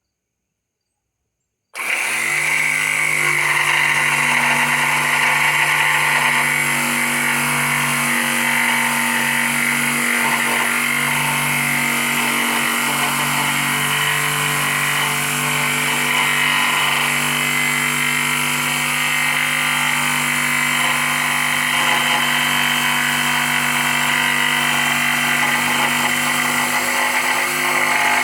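Electric jigsaw running steadily as it cuts, its motor hum and blade noise starting abruptly about two seconds in after silence.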